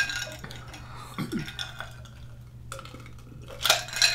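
Ice clinking in a glass tumbler as it is lifted and moved, with a few sharp clinks at the start and again near the end.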